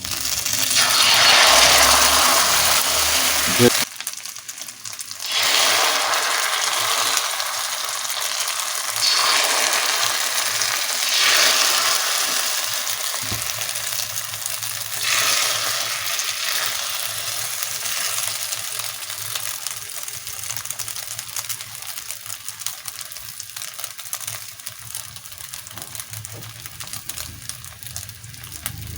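Spiced egg mixture frying in hot oil in a pan, sizzling. The loudest sizzle comes in the first four seconds, with fresh surges a few times after, then the sizzle settles to a steadier, slowly fading hiss.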